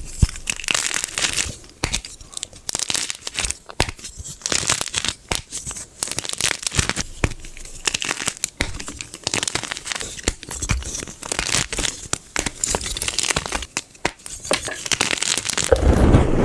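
Gym chalk being crushed by hand close to the microphone: dense crunching and crackling with many sharp snaps. Near the end a louder, denser, fuller crunching sets in.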